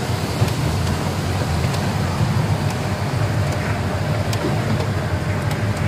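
Jeep engine running steadily with a low rumble and road noise, with a few faint ticks.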